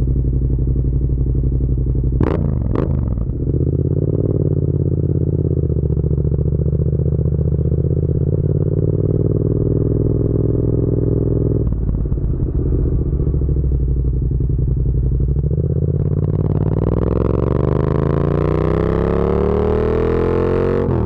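Yamaha MT-07's parallel-twin engine running steadily at low revs, with two brief sharp noises a couple of seconds in; over the last five seconds its pitch rises steadily as the bike accelerates.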